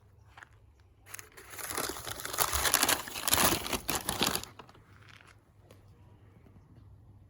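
Crinkling and crumpling of packaging, a dense rustle lasting about three and a half seconds that is loudest in the middle and stops about four and a half seconds in.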